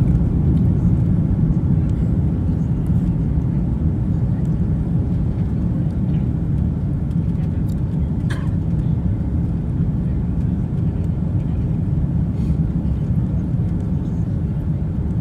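Steady low rumble of an airliner's engines and rushing air, heard inside the passenger cabin during the descent to land. A brief faint click sounds about eight seconds in.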